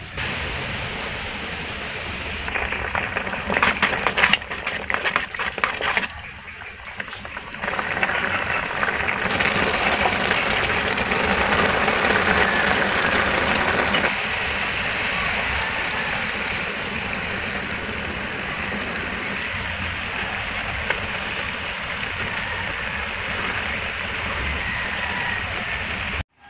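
Coconut milk boiling in a wide pan: a steady bubbling hiss, with a spell of crackling a few seconds in. From about halfway it goes on as a steadier, slightly quieter simmer as the cassava leaves cook down in the sauce.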